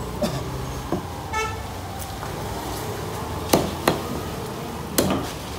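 Fish-cutting knife chopping through sea bass pieces onto a wooden block: three sharp chops in the second half, the loudest sounds here. A short horn toot sounds about a second and a half in, over steady street noise.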